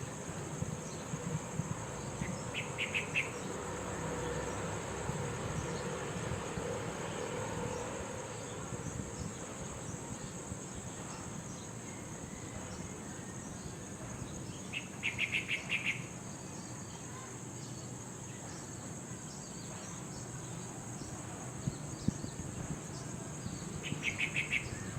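A steady, high-pitched chirring of insects, cricket-like, with three short bursts of rapid pulses.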